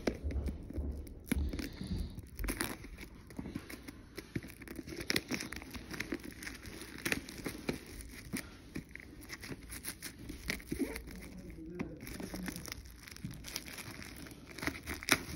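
Plastic shrink-wrap being torn and peeled off a Blu-ray box set, crinkling with many irregular crackles and clicks.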